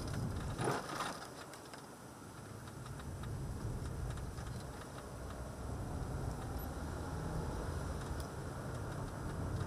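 Car engine and tyre noise heard from inside the cabin, a steady low rumble, with a brief louder noise near the start and a few light clicks.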